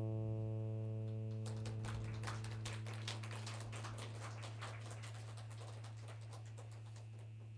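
A sustained low drone note, fading slowly, its upper overtones cutting out about a second and a half in. From then on, irregular faint clicks and taps sound over the fading drone.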